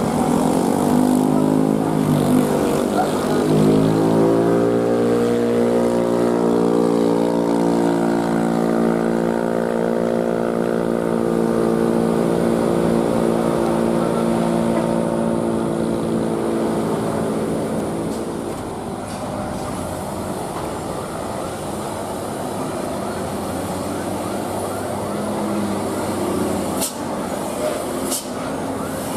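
Diesel engine of a Mercedes-Benz tour bus pulling up a hairpin, its pitch rising over the first few seconds and then held steady. It fades about eighteen seconds in as the bus draws away, leaving the mixed engine noise of following cars and trucks.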